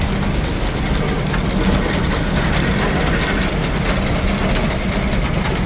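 Steam engine driving a Frick sawmill, running steadily with the saw turning but not yet cutting, with a fast, even ticking throughout.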